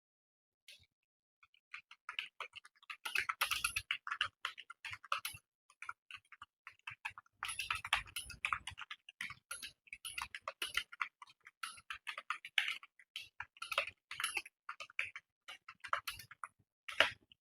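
Computer keyboard keys clicking in fast, continuous typing during a timed typing test: a few isolated clicks, then a dense run of keystrokes from about two seconds in.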